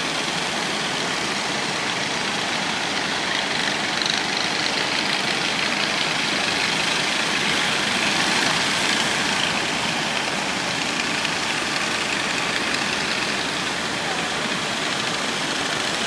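Heavy surf breaking and washing steadily, with the drone of fishing boat engines running under it as the boats cross the breakers.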